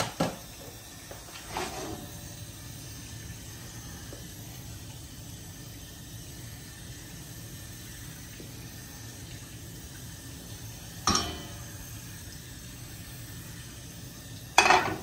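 Steady rushing of a lit gas hob burner under a large frying pan of oil. A few sharp knocks and clanks come as the pan is lifted, tilted to coat it with oil and set back on the pan support. The loudest clank comes near the end.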